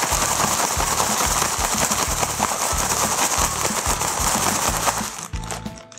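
A plastic bag rustling and crinkling as breaded chicken pieces are shaken inside it, over background music with a steady beat. The shaking stops about five seconds in.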